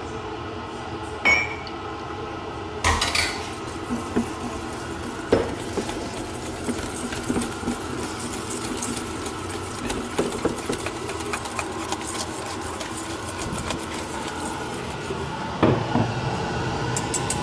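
Wire whisk beating egg and pecorino cream in a stainless steel bowl: a few sharp metal clinks against the bowl in the first seconds, then a run of quick light ticks as it whisks, and a couple of louder knocks near the end. A steady background hum runs underneath.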